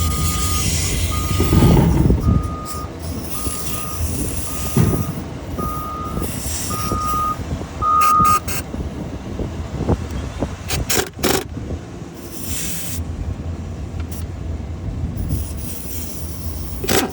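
Heavy-equipment reversing alarm beeping nearly twice a second over a low engine rumble, growing louder and then stopping about eight seconds in. A few sharp metallic knocks follow.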